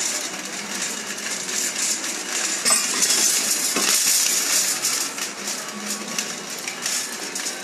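Metal shopping trolley rattling and clinking as it is pushed along, a continuous rapid clatter that grows louder about three seconds in.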